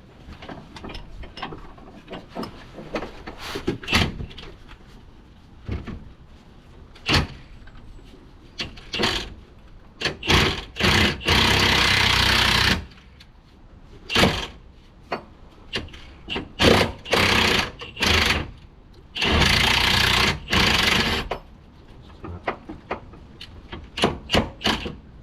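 Impact wrench running in several short bursts and two longer runs of about two seconds each, undoing bolts. Between them come knocks and clinks of tools and metal parts.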